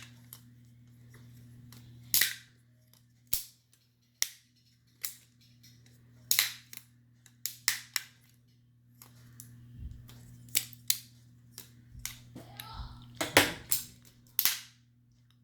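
Lego butterfly knife being flipped and handled: its plastic handles clack sharply at irregular intervals, about fifteen times, sometimes in quick pairs. A steady low hum runs beneath.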